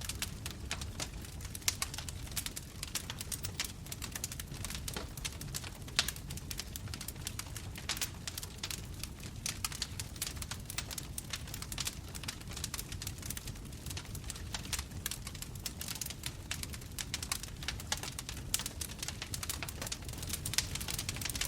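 Bonfire burning with a steady low rumble of flames and dense, irregular crackling and popping of the wood.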